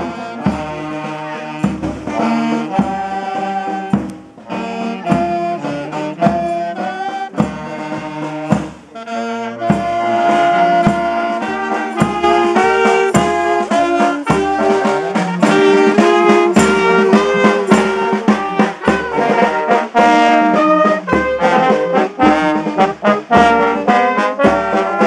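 Wind band playing: trombones, saxophones and clarinet sound held melody notes over a regular drum beat.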